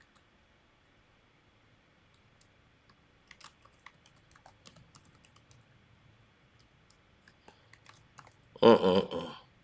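Faint, irregular clicks and taps for several seconds, then a brief spoken word near the end.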